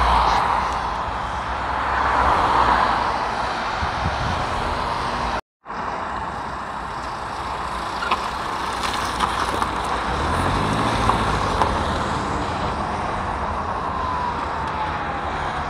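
Road traffic passing close by on a highway: engine and tyre noise swelling twice as vehicles go past. The sound cuts out for a moment about five seconds in, then continues as steadier traffic noise with a faint falling tone near the end.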